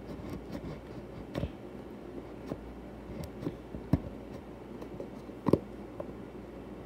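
Tip of a small metal sword-shaped blade scratching and picking at a paper security seal on a cardboard box: faint scraping with scattered light clicks.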